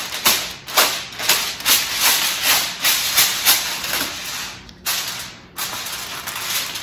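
Reynolds Wrap aluminium foil crinkling in a rapid run of crackles as a sheet is spread and pressed down over a baking dish, with a short pause about five seconds in.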